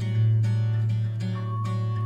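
Background music: an acoustic guitar piece with regular strums over a held low bass note.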